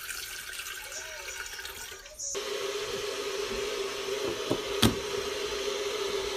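Water pouring from a filter pitcher into an open stainless-steel electric kettle. It cuts off abruptly after about two seconds into a louder steady hiss with a low hum, broken by a single sharp knock about five seconds in.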